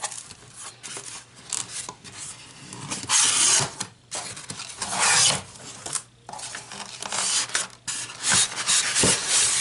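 Styrofoam packing and plastic wrap scraping against a cardboard shipping box as a sewing machine is slid out. The sound comes as several drags of about a second each, the loudest about three and five seconds in.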